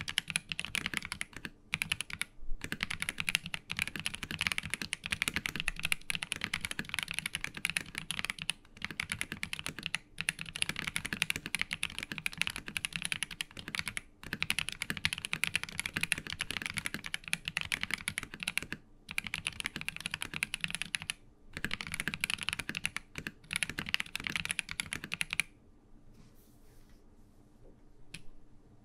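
Continuous typing on a Monsgeek M3 mechanical keyboard fitted with YUNZII Milk linear switches, lubed from the factory: a dense stream of key strokes with a few short pauses. The typing stops about 25 seconds in.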